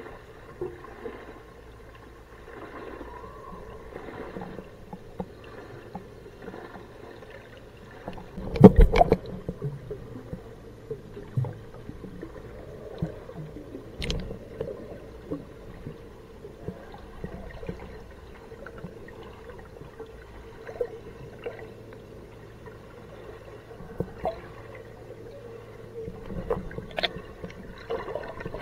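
Underwater sound picked up by a camera submerged in an aquarium tank: muffled gurgling and moving water over a faint steady hum. A loud burst of noise comes about nine seconds in, and a few sharp clicks follow later.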